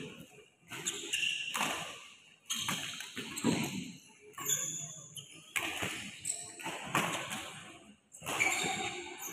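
Badminton hall sounds: sharp shuttlecock hits from rackets about once a second, each echoing in the large hall, with shoe squeaks on the court mat between them.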